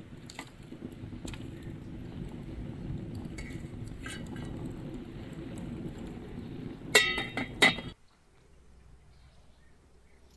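A steady low rushing noise with a few light clicks. About seven seconds in comes a quick run of sharp, ringing kitchenware clinks, glass or metal knocking together.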